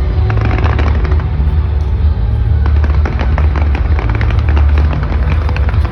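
Aerial fireworks crackling in quick, dense succession over a continuous loud low rumble, with music mixed in.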